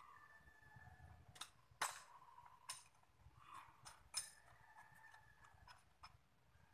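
Faint, scattered metallic clicks and taps of a hand tool working at a split-type aircon outdoor unit's mounting bracket, about eight over a few seconds, the sharpest about two seconds in.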